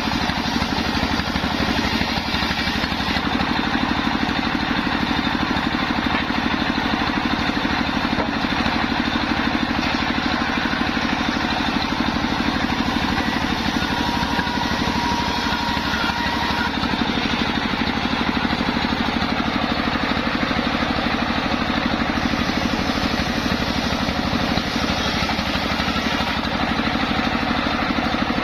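Homemade circular saw rig running steadily, with a constant engine-like drone and a fast, even pulse.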